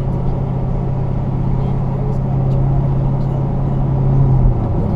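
5th-generation Chevrolet Camaro's engine and road noise while driving, a steady low drone that swells slightly and then drops away about four and a half seconds in.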